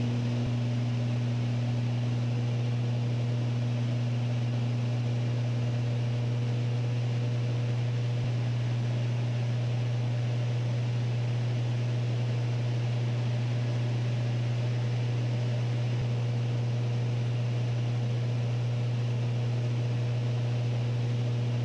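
Steady drone of a Beechcraft Baron B55's twin piston engines and propellers in cruise, heard inside the cabin: an even low hum with a few fainter, higher steady tones above it.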